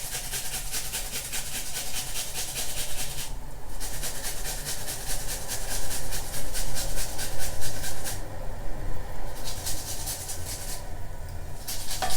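An onion grated on a hand grater: quick, rhythmic scraping strokes, broken by three short pauses.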